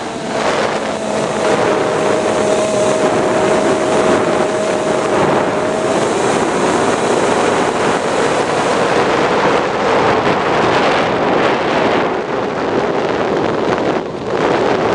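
Wind rushing over the camera on a Multiplex Easystar RC plane in flight, with a steady whine from its electric motor and propeller that stops about six seconds in, leaving the wind. The wind noise drops briefly near the end.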